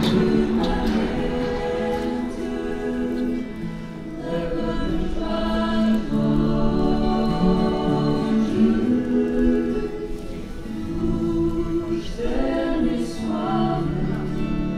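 A choir singing a slow sacred song, with long held notes.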